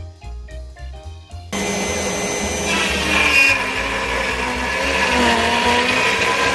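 Light jazzy music, then, about a second and a half in, an abrupt cut to a CNC router's spindle running at 12,000 rpm as a spiral end mill cuts a slot in wood at a 110 inch-per-minute feed: a loud, steady whine of several tones over the rasp of cutting.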